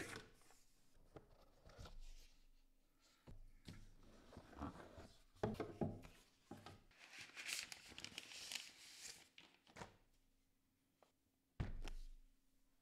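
Cardboard packaging being handled: short knocks and scrapes as a box is slid from its sleeve and opened, a longer rustling slide about halfway through, and a thud near the end.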